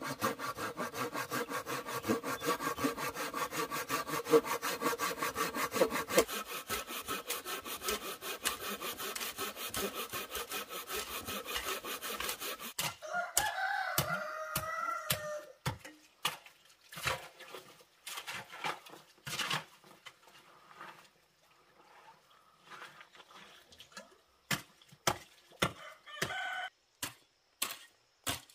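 A handsaw cutting through a wooden beam with fast, steady back-and-forth strokes. About halfway through, a rooster crows once, and after it come scattered dull knocks of a hoe chopping into stony soil.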